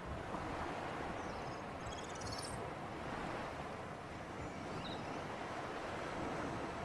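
Sea surf and breeze: a steady wash of waves without a break, with a few faint high chirps around two seconds in and once more near five seconds.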